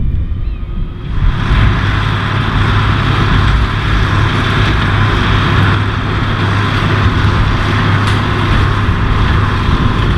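Massey Ferguson 6465 tractor engine running steadily while it works a John Deere small square baler, with a steady hiss joining about a second in.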